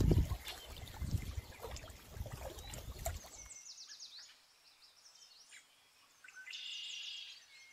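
Small waves lapping against a rocky lakeshore with gusts of wind, cutting off about three and a half seconds in. Faint birdsong follows: a series of quick falling chirps, then a buzzy trill near the end.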